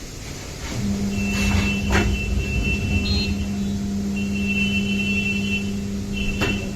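Tyre changer machine's electric motor running with a steady hum, starting about a second in, as it turns the wheel to work a new tyre onto the rim. Thin high squeaks come and go over the hum, with a few knocks.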